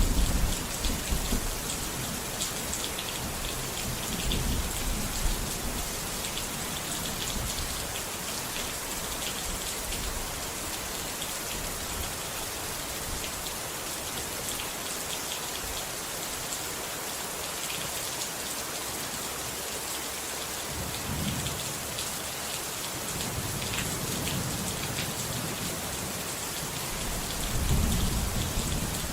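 Steady heavy rain, with low rolls of thunder at the start, in the middle and near the end.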